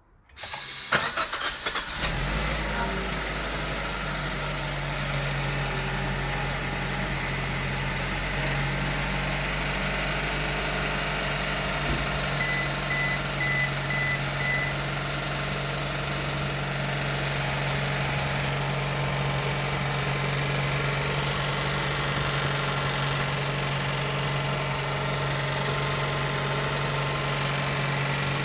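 Suzuki Ignis's 1.2-litre K12D four-cylinder petrol engine starting from cold: it catches within the first two seconds, then settles into a steady idle.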